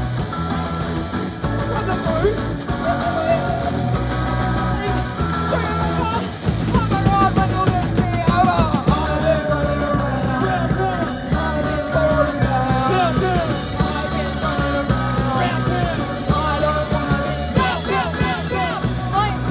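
Live rock band playing through a PA: electric guitars, bass guitar and drums, with a singer singing into a microphone.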